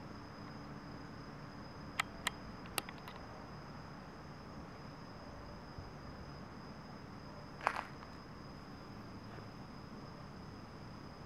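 Faint steady background hiss with a constant high-pitched tone, broken by three quick sharp clicks about two seconds in and a single louder click near eight seconds.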